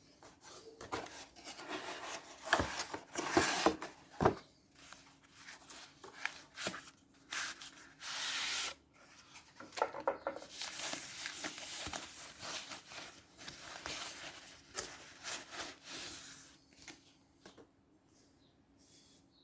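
Packaging being handled during an unboxing: irregular rubbing, scraping and crinkling of cardboard and plastic, with a few sharp knocks a few seconds in.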